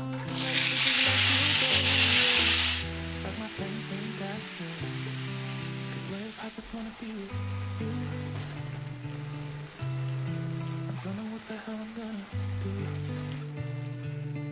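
Food sizzling in a hot oiled pan: a loud burst of sizzling for about two seconds as it first goes in, then settling to a steady, softer sizzle as it cooks.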